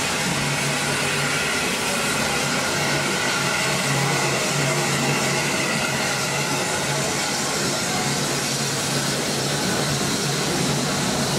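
Steam locomotives running slowly past along the platform, a loud, steady hiss of steam throughout with a low hum beneath it.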